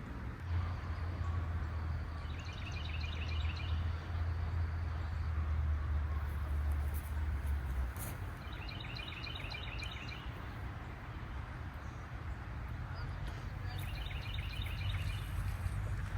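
A songbird repeating a short, rapid trill of quick notes about every five to six seconds, over a steady outdoor rush of background noise. A low steady hum runs under it for the first half and stops about halfway through.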